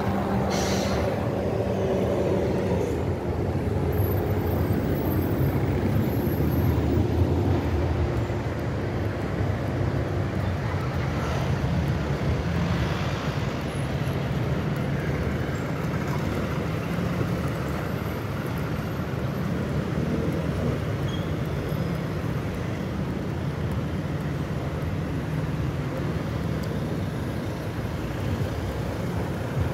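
Steady city street traffic: cars and vans driving past in a continuous stream, with one passing loudest about seven seconds in.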